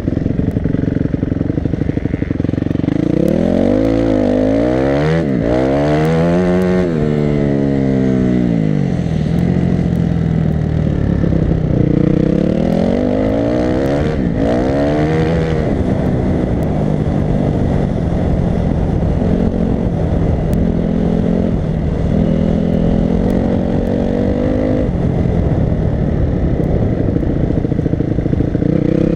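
Off-road racing motorcycle engine at full race pace, heard from the rider's helmet. It revs up and drops back several times as the rider shifts and brakes, then holds a steadier high rev.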